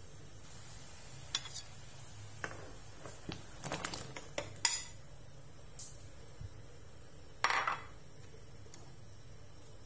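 A metal ladle and a ceramic bowl clinking against a steel pot in a series of light, irregular clinks while chunks of carrot and daikon radish are tipped into boiling water. Late on there is a louder, short clatter of dishware.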